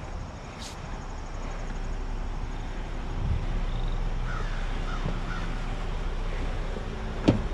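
A crow cawing, three short caws about halfway through, over a steady outdoor background hiss.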